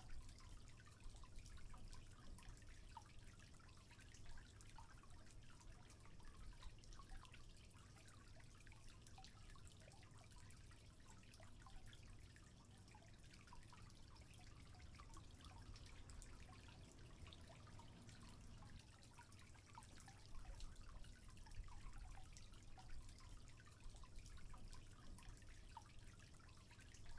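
Faint trickling water with many small scattered drips.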